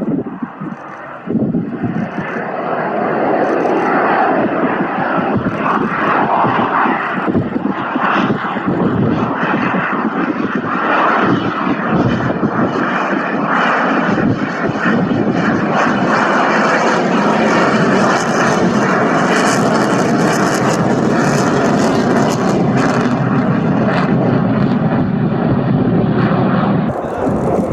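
Dassault Rafale C jet fighter's twin Snecma M88 turbofans running loud during a flying display, building over the first few seconds and then holding, with a harsher, hissier edge in the second half.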